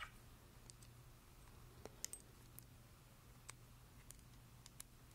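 Faint, scattered light clicks of small metal socket head screws, a hex key and aluminum mounts tapping against each other and a plastic piece as they are fitted by hand, with a sharper pair about two seconds in. A faint steady low hum runs underneath.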